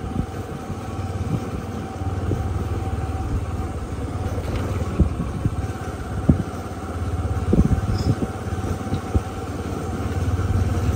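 Motorcycle engine running steadily while riding, with scattered knocks and rattles as the bike jolts over the broken road surface.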